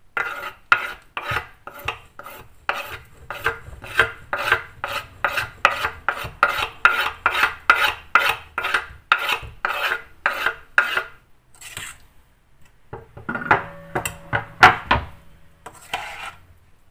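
Knife blade scraped over and over across a wooden cutting board, about three strokes a second, pushing chopped herbs off into a pot. After a short pause near the end, a spoon stirs and clinks against the metal pot, which rings.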